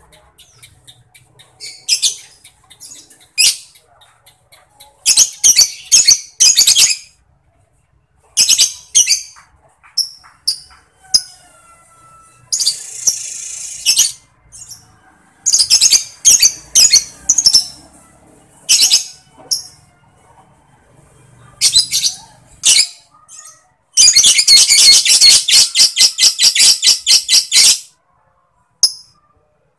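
Lovebird singing in short bursts of rapid, high chirping notes (ngetik), with a long unbroken chatter (ngekek) of about four seconds near the end.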